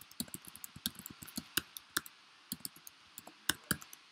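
Typing on a computer keyboard: a run of irregular key clicks with brief pauses, a few keystrokes louder than the rest about three and a half seconds in.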